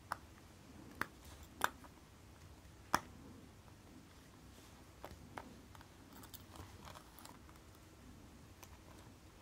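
Light, sharp clicks and taps of watchmaker's tools on a watch movement's small parts during bench work on a Citizen caliber 8110A chronograph, four clear clicks in the first three seconds, then fainter ticks.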